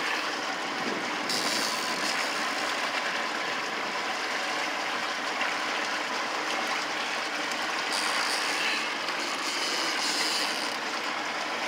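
Steady rushing noise of wind and water lapping against a small fishing boat, growing hissier about a second in and again for short spells near the end.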